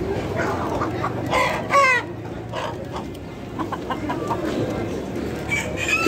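Chickens clucking, with one loud call about a second and a half in and shorter clucks after it.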